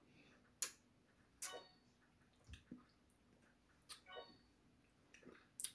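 Faint eating sounds with a small spoon: about four separate soft clicks and taps, spread out, with near silence between them.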